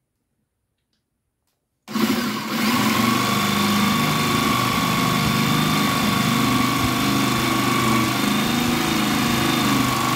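Electric jigsaw starting suddenly about two seconds in and running steadily as it saws through a thin wooden stick.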